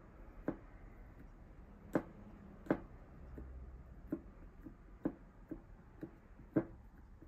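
Wooden tamper knocking as it presses oat-biscuit dough into a small cup mould: about ten short knocks at uneven intervals, the loudest about two seconds in, near three seconds and near the end.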